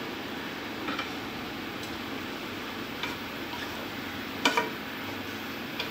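A wooden spatula stirs a thick curry in a nonstick kadai, knocking against the pan a few times; the loudest knock comes about three-quarters of the way through. A steady hiss runs underneath.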